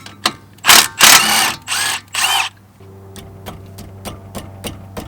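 A power tool, a cordless drill or impact driver, run in four short bursts on the brake hardware, its pitch rising within some bursts. It is followed by a hand ratchet clicking steadily, about four clicks a second.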